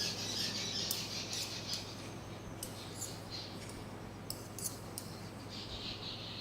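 Knitting needles clicking faintly and irregularly while stitches are purled, with a soft rustle of wool yarn drawn over the needles.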